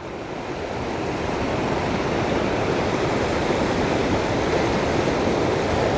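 Pacific surf washing over rocks: a steady rush of breaking waves that swells over the first second or so, then holds.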